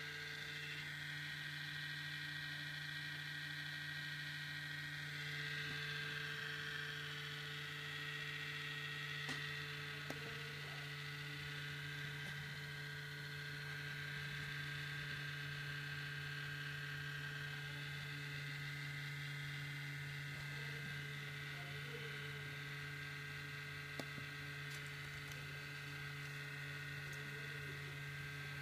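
MacBook Pro giving off a strange loud noise: a steady hum with several high whining tones over it, while the computer is not under heavy processor load. Two faint clicks come through about ten seconds in and again near twenty-four seconds.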